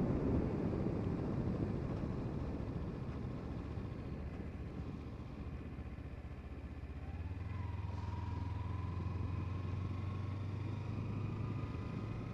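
Kawasaki Ninja 300's parallel-twin engine running under way, heard through wind noise on a helmet microphone. The wind noise is strong at first and eases over the first few seconds; from about seven seconds in the engine settles into a steady low drone with a faint whine slowly rising in pitch.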